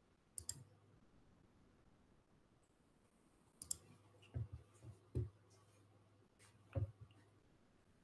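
Faint, scattered clicks and light knocks, about eight of them, with near silence between, the first about half a second in and most between four and seven seconds in.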